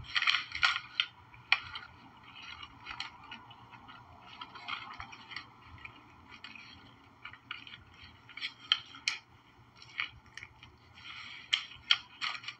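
Close-up eating sounds: chewing a sub sandwich and handling it on its paper wrapper, as irregular small clicks and crackles.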